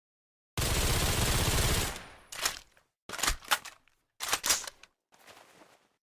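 Suppressed bolt-action Mauser carbine sound effect. First comes a dense, noisy discharge lasting over a second. Then there are three quick groups of sharp metallic clacks, like the bolt being worked, and a fainter rustle near the end.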